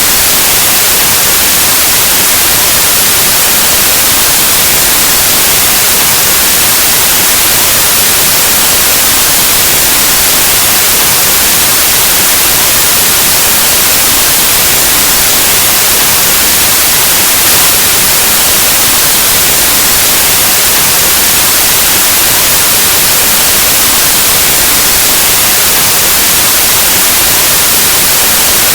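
Steady, loud white noise: an even hiss like the static of an analog television or radio, unchanging throughout.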